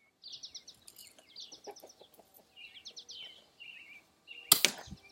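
Birds chirping in quick repeated notes, with a few soft clicks and one sharp knock near the end.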